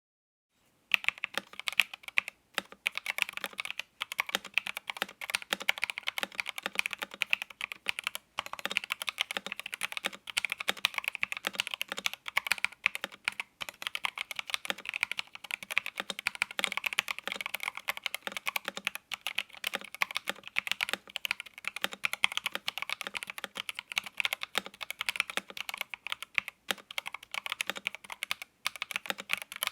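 Epomaker TH66 mechanical keyboard with Epomaker Flamingo switches being typed on continuously, in fast, dense keystrokes that start about a second in, with a few brief pauses.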